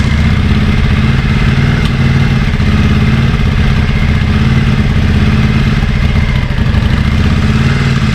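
Yamaha Virago 535's air-cooled V-twin engine running steadily at a low, even speed. It has freshly cleaned carburettors but is still running sluggish.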